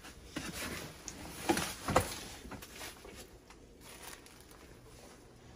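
Footsteps and rustling in debris-strewn rooms, with two sharper knocks about one and a half and two seconds in.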